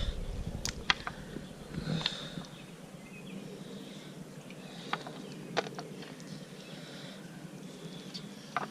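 A few scattered sharp clicks and faint scraping from a knife working on a catfish being filleted, over a low steady background hum.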